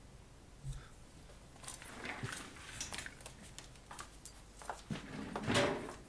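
Scattered small clicks, knocks and rustles of objects being handled and moved about, with a louder noise near the end.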